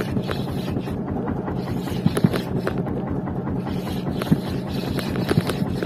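Fishing boat's engine running steadily, a low, even throb, with wind on the microphone and a few sharp clicks.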